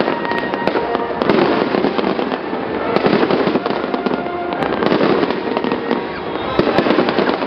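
Fireworks display: a dense, continuous crackle of many small reports and pops as shells burst overhead.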